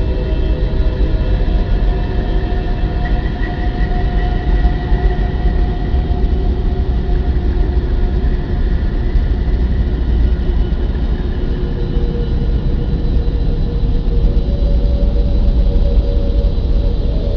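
A continuous deep rumbling drone with several held tones above it that slowly shift, one coming in about fourteen seconds in. The title presents it as the sound of Earth from space.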